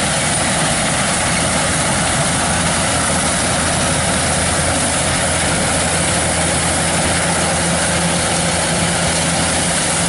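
Kubota DC-105X combine harvester running steadily under harvesting load: its diesel engine and threshing machinery make a loud, even drone with no change in pitch or level.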